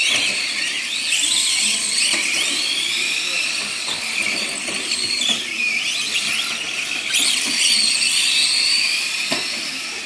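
Several radio-controlled semi trucks racing on dirt, their electric motors whining high, the pitch rising and falling with the throttle as they overlap. A few sharp knocks cut in.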